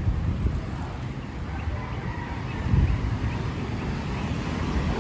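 Street ambience heard while walking: wind buffeting the phone's microphone in uneven gusts, over distant motorcycle and car traffic.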